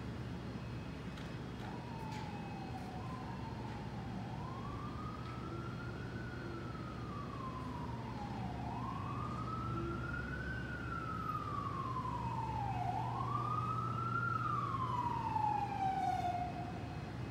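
Emergency vehicle siren wailing, its pitch rising and falling slowly, about four seconds per cycle, growing somewhat louder toward the end.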